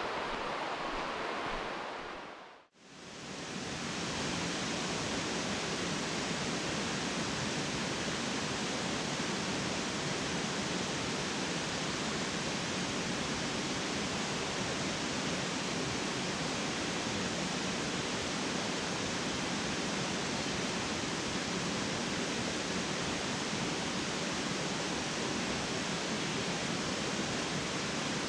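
Steady rush of creek water spilling over rocks, an even hiss that doesn't change; it drops out briefly about three seconds in, then carries on.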